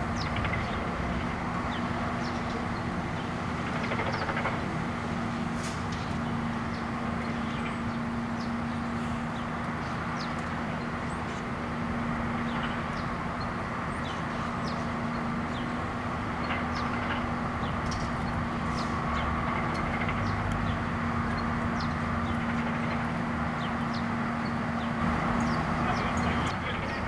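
Steady low hum of an idling utility bucket truck's engine, with small birds chirping briefly now and then.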